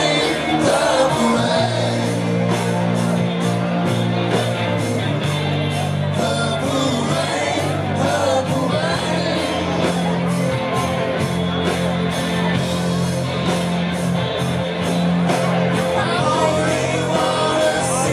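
Live rock band playing: electric guitars, bass and drums with a singer over a steady beat.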